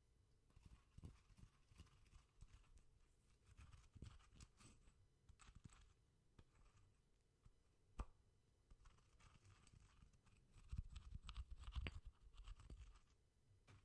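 Pestle grinding and tapping inside a mortar: soft scraping with light clicks, one sharp knock about eight seconds in and a busier run of taps near the end.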